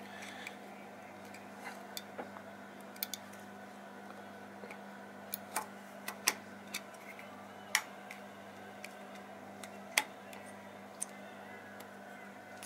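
Irregular sharp clicks and taps as plastic limit-switch brackets are handled and pressed against the metal carriage of a CNC mill, over a faint steady hum.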